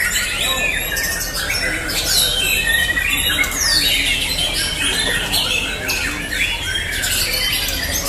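Many caged white-rumped shamas (murai batu) singing over one another in competition: a dense, loud tangle of shrill whistles and sharp rising and falling notes.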